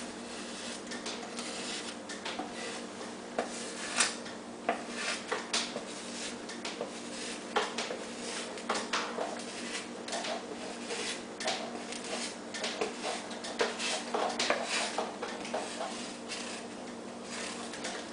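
Scattered taps, knocks and rubbing from a foam sheet and hand tools being handled and cut on a work board, over a steady hum.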